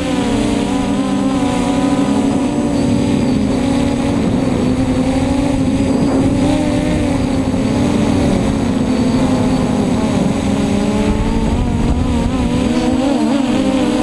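Brushless motors and propellers of a scratch-built F330 quadcopter whining, heard from the onboard camera: a steady multi-tone hum whose pitch shifts with throttle, most near the end, over wind rushing across the microphone.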